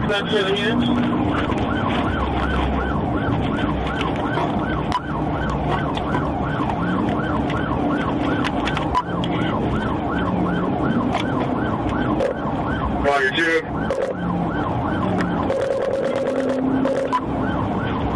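Police car siren on the fast yelp setting, rising and falling about three times a second. Near the end it briefly changes to a quick climbing sweep, then returns to the yelp, over the patrol car's steady engine and road hum.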